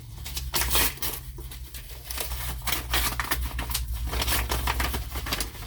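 An envelope being torn open and handled, with a rapid, irregular run of tearing, rustling and crinkling of the packaging.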